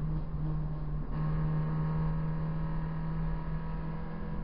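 Proton Saga BLM's four-cylinder engine running at a steady, high pitch, heard from inside the car's cabin, with a brief dip about a second in.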